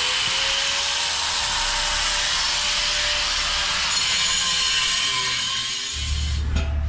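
Handheld electric power tool running at full speed, a steady high whine over a loud cutting hiss. The whine sags and the tool stops about six seconds in.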